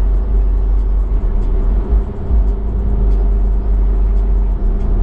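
Steady engine drone and road rumble heard from inside a moving car, with an even low hum and no change in pace.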